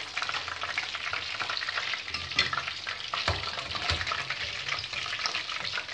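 Besan-battered hake fillets shallow-frying in hot oil in a pan, a steady crackling sizzle, with a few faint knocks in the middle.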